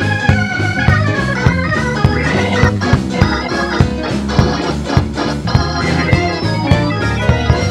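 Instrumental break in a gospel song: organ chords over a bass line and a steady drum beat.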